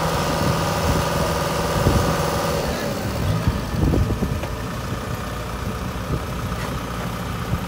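Diesel engines of a tractor and a combine harvester idling steadily, both bogged in a flooded paddy. A higher steady whine runs alongside and fades out about two and a half seconds in.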